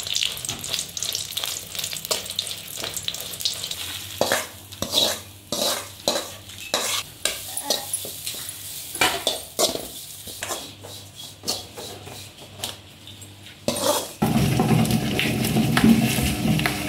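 A steel ladle stirring and scraping red chillies and then grated coconut as they roast in an aluminium kadai: a light crackle with many short scrapes and clinks of metal on metal. About 14 seconds in, a louder steady low rushing noise takes over.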